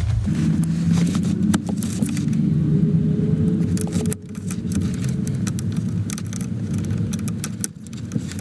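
Many light metallic clicks and clinks of nuts and hand tools as the steering column's nuts are fitted, over a steady low mechanical hum.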